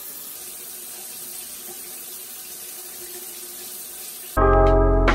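Shower running: water spraying steadily from a handheld shower head, a steady hiss. About four seconds in, background music cuts in suddenly and is the loudest thing near the end.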